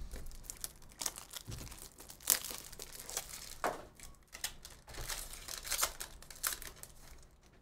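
Foil wrapper of a 2023 Upper Deck Goodwin Champions trading-card pack being torn open and crinkled as the cards are pulled out: a dense run of sharp crackles and rustles that fades near the end.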